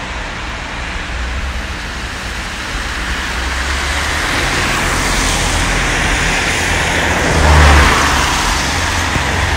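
A vehicle passing on a road, building gradually to its loudest near the end, over a steady low rumble.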